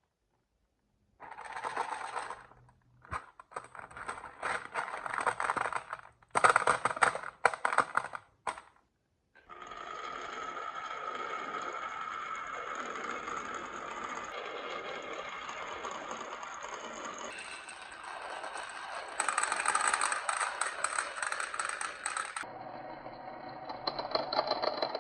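Marbles rolling and clattering down a HABA wooden marble-run track: a few short clattering runs with sharp clicks, then a long, steady rattling roll.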